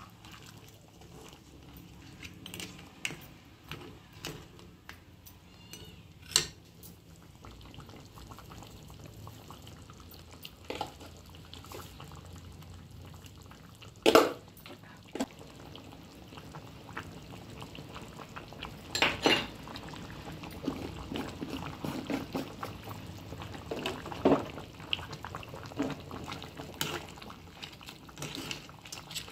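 Crab and tamarind curry simmering in a metal kadai, with a steady low bubbling. A steel spoon knocks and scrapes against the pan now and then as the curry is stirred, loudest about halfway through and again a few seconds later.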